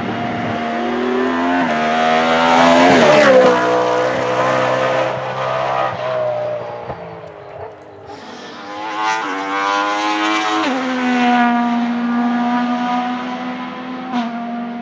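A race car's engine at high revs passing by twice, the pitch dropping as it goes past about three seconds in and again about ten seconds in.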